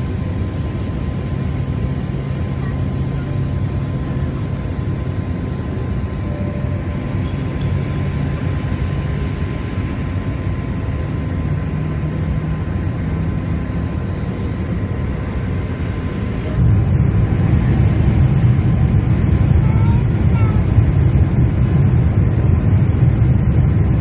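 Steady jet noise from a Boeing 747-8 airliner, a low rumble with a faint whine. About 17 seconds in, it suddenly becomes louder and heavier.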